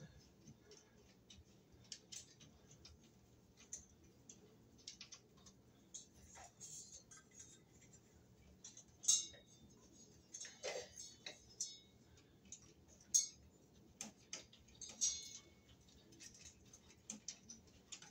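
Scattered light clicks, taps and small rattles of ceiling fan wires and the fan's plastic and metal motor housing being handled at the ceiling mounting bracket, with a few sharper clacks about 9 and 13 seconds in.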